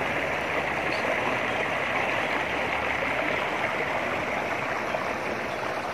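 Running water, a steady rushing sound with no break.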